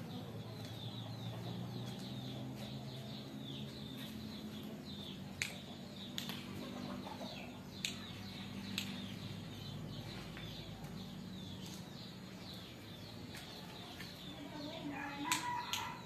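Backyard birds: chickens clucking and small birds chirping again and again in short falling notes, with a few sharp clicks, and a louder call with a clear pitch near the end.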